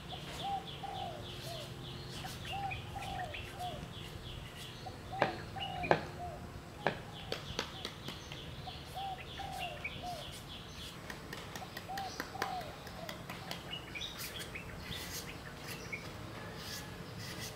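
Birds calling: a rapid high-pitched chirping series and repeated lower short calls in twos and threes. Over them a knife shaves strips off a green papaya, giving several sharp clicks about a third of the way in.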